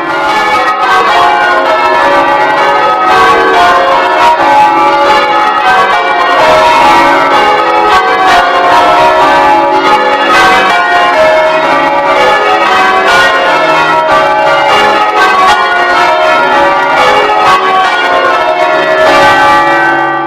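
Ring of ten church bells being change-rung, the bells striking one after another in a quick, unbroken sequence.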